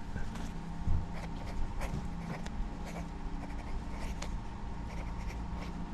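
Ballpoint pen writing on notebook paper: light, irregular scratching strokes, over a faint steady hum.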